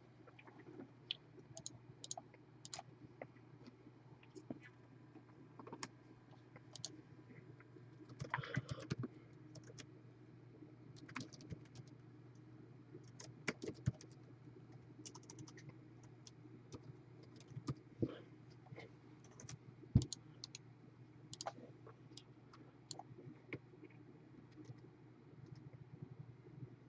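Laptop keyboard being typed on: faint, irregular key taps and clicks, with a denser run of keystrokes about eight seconds in, over a faint steady low hum.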